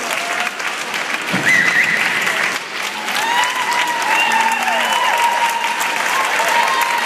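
Audience applauding, with high cheering calls from the crowd over the clapping from about three seconds in.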